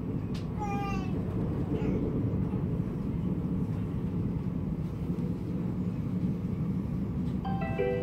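Inside an Alstom X60 (Coradia Nordic) electric commuter train running at speed: a steady low rumble of wheels and running gear. A short falling tone comes about half a second in, and a brief pitched tone sounds near the end.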